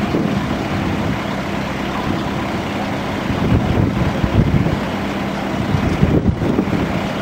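Combilift four-way forklift's engine running steadily with a constant hum while it lifts a load of packed boards off a trailer.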